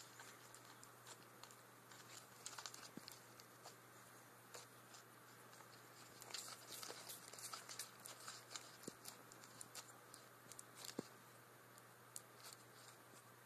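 Green iguana biting and tearing leafy greens: faint, irregular crisp clicks and crunches, thickest in the middle, over a low steady hum.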